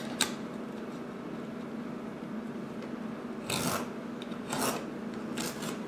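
X-Acto craft knife drawn along a ruler, slicing a strip of duct tape in half on a cutting mat: a few short scraping strokes, about three and a half, four and a half and five and a half seconds in.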